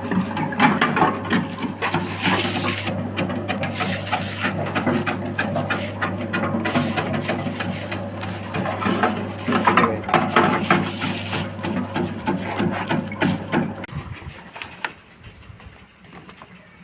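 Fried-meatball cutting machine running: a steady electric motor hum with dense, rapid clattering and clicking from the cutting. The machine stops near the end.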